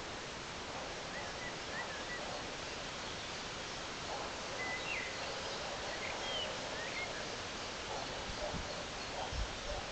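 Woodland ambience: a steady background hiss with faint, scattered short bird chirps, and a couple of low thumps near the end.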